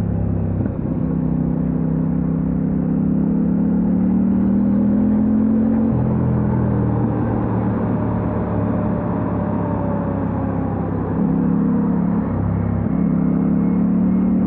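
Kove 800X Pro motorcycle's parallel-twin engine running under way, with a steady engine note that steps up or down a few times, about 6 s in, about 11 s in and again about 13 s in.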